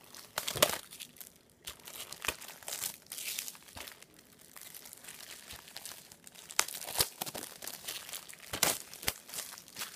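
Plastic shrink wrap crinkling and tearing as it is peeled off a movie disc case, with several sharp crackles and snaps among the rustling.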